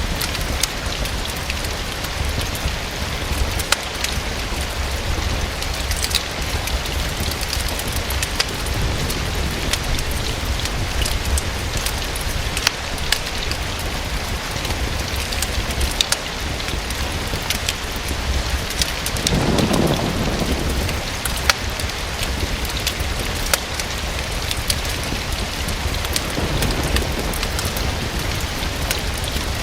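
Steady rain falling against a window, with scattered sharp crackles from a wood fire in a fireplace. A brief low rumble comes about two-thirds of the way through.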